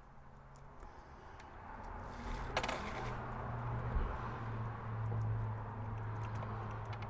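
Small metal fittings being worked by hand on a model tank hull: scattered light clicks and a short rasping noise about two seconds in, followed by a low steady hum.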